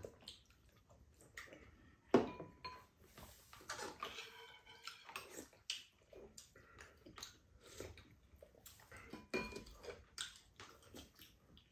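Quiet eating sounds of two people at a table: chewing and sipping broth, with spoons and chopsticks clicking against ceramic bowls and a pot. One sharp clink about two seconds in.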